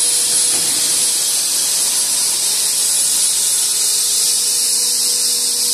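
Veneer cutting machine with a scoring saw running: its electric saw motor and spinning blades give a loud, steady high-pitched hiss over a steady hum, as the saw carriage travels along the bed.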